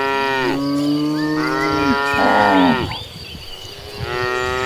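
Several cattle mooing in long, drawn-out calls that overlap one another, with a short lull past the middle before another moo begins near the end.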